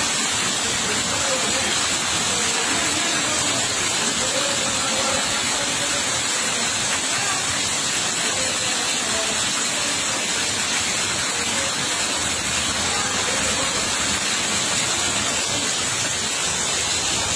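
Heavy rain pouring onto flooded concrete and standing water, a steady loud hiss of falling and running water.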